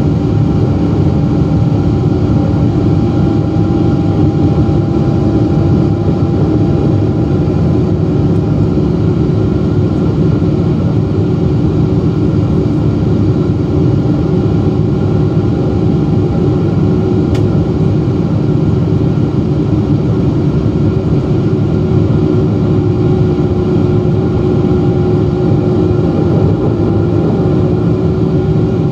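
Boeing 777-200's GE90 turbofan engines running at climb power, heard inside the cabin beside the wing: a loud, steady rumble with a steady hum through it.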